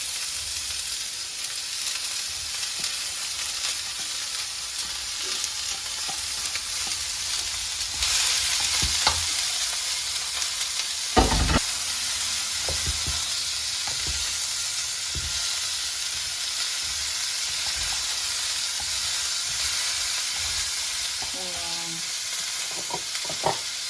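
Vegetables frying in hot olive oil in a pan, with a steady sizzle that grows a little louder about eight seconds in. A utensil stirring them gives scattered knocks, the loudest a little before halfway through.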